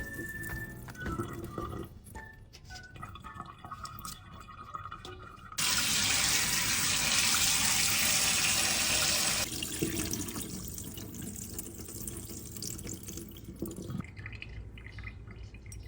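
Water splashing in a sink as shrimp are rinsed of sand, with the tap running hard for about four seconds in the middle.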